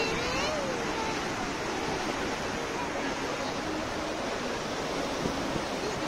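Rough sea waves surging and breaking over rocks: a steady, unbroken rushing wash of water and spray.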